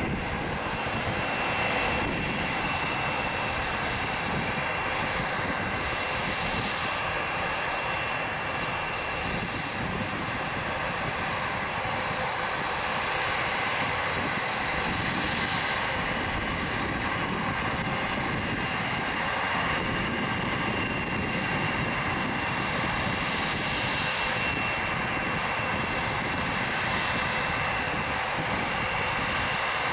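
Airbus A319CJ's two IAE V2500 turbofan engines running at taxi idle: a steady jet whine with high tones over a constant low rush, swelling slightly a few times.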